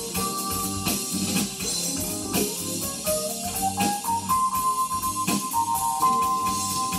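Music played from a vinyl record on a Linn Axis turntable and heard through hi-fi loudspeakers: a steady beat, with a note that glides upward about halfway through and is then held.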